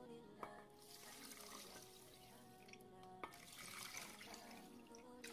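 Water poured from a jug into a steel pot of sugar, a splashing stream that starts about a second in and runs on, over faint background music.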